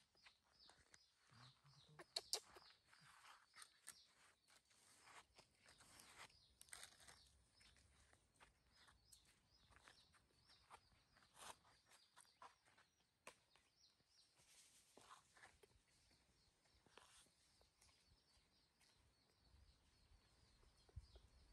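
Near silence: faint outdoor ambience with a steady run of quick, high chirps in the background and scattered light rustles of the cloth hammock as a baby monkey squirms in it.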